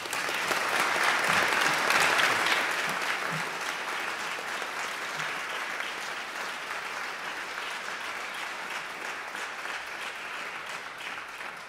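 Audience applauding: many hands clapping, swelling to its loudest in the first few seconds, then easing to a steady level and fading near the end.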